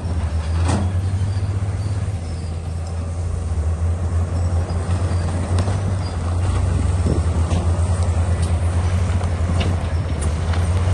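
Bulldozer diesel engine running with a steady low drone, with occasional sharp clanks. The engine grows louder about six seconds in.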